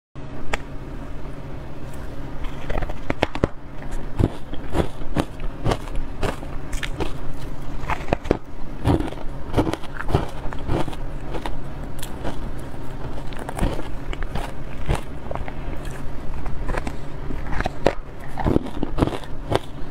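Frozen carbonated ice coated in matcha powder being bitten and crunched, with many sharp crackles and crunches following one another closely, over a low steady hum.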